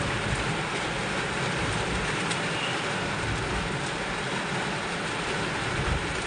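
Heavy rain pouring down steadily in a dense, even hiss.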